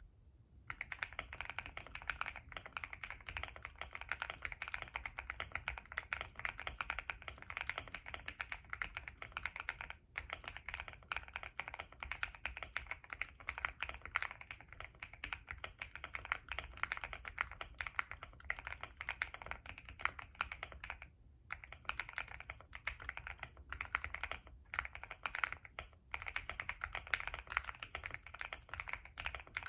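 Continuous fast typing on a Monsgeek M1 mechanical keyboard with stock CIY Naraka switches (POK stems), a POM plate and a foam-filled, tape-modded case. It gives a dense run of keystroke clacks, with brief pauses a few times.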